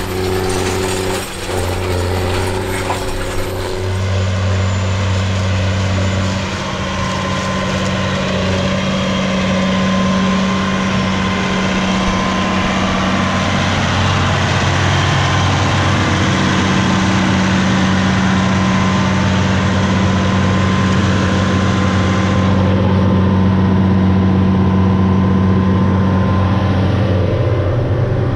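John Deere 9620T tracked tractor's 500-horsepower diesel engine running steadily with a constant low drone while working a field. Near the end it is heard from inside the tractor's cab.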